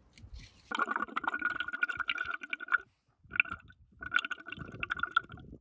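Water gurgling and crackling as picked up by a submerged underwater camera, muffled and busy, in three stretches that start and stop abruptly.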